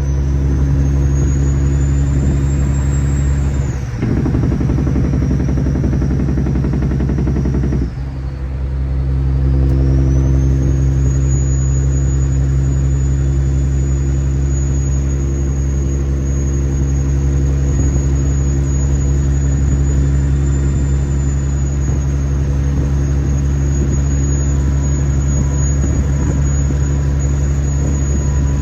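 Kenworth W900's heavy diesel engine running steadily, with a thin high turbo whistle that dips and climbs again. From about four to eight seconds in, the engine note breaks into a rapid chatter, then it goes back to a steady run.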